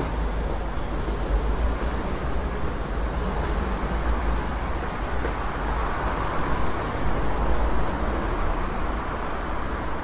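Busy city street traffic: a steady mix of engine and tyre noise over a deep rumble. One vehicle swells louder for a moment about six to eight seconds in.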